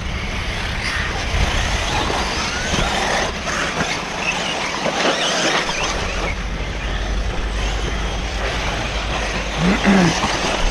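RC buggies racing on a dirt track, heard as a steady noisy din with wind rumbling on the microphone. A brief voice comes in near the end.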